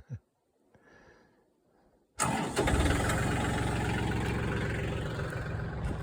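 Backhoe's diesel engine cuts in suddenly about two seconds in and runs loudly and steadily, easing off a little toward the end.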